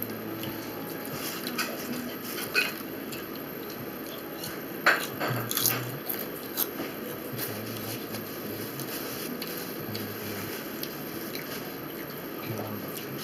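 Eating sounds close to the microphone: wet mouth clicks and smacks while chewing. They come as scattered single clicks, with a short cluster of louder ones around the middle.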